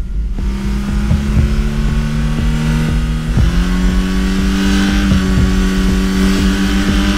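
Car engine running hard at speed, with road and wind rush over it; its pitch steps up about three and a half seconds in, as if revving higher.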